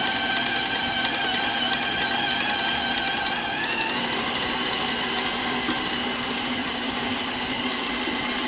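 KitchenAid stand mixer running with its paddle beating thick peanut butter cookie dough: a steady motor whine with a fast, even ticking, its pitch stepping up slightly a few seconds in.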